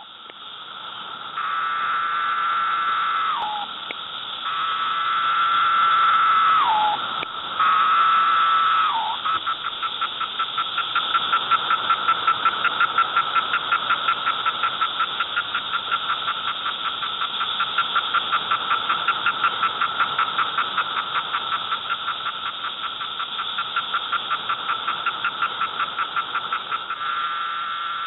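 Cicadas singing: three long buzzes, each dropping in pitch as it ends, then a continuous fast, evenly pulsing buzz.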